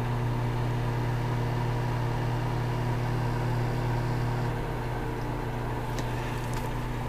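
Microwave oven running with a steady hum.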